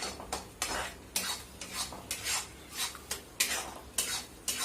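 Cooking spoon scraping and stirring thick masala paste around a pan, in quick repeated strokes about three a second.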